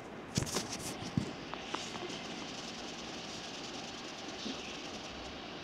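A few light clicks and taps in the first two seconds, then a steady background hiss.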